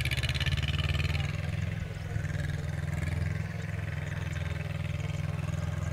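Yanmar YM2700 small diesel tractor's engine running steadily as it hauls a trailer loaded with sacks of rice.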